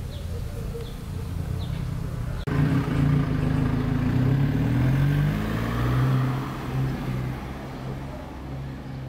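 Street traffic: a steady low rumble, then after a sudden cut about two and a half seconds in, a louder motor vehicle engine running close by, its pitch sliding down as it fades over several seconds.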